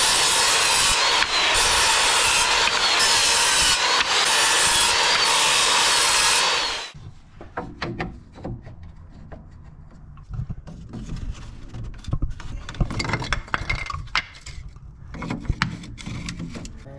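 A saw cutting through plywood, loud and steady for about seven seconds with a pitch that rises and falls in a slow repeating rhythm. After it stops, scattered knocks and clatter of the cut wood being handled.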